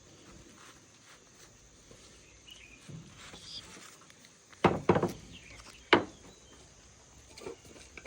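Insects droning steadily in the background, with a quick cluster of loud knocks a little past halfway and one more knock about a second later.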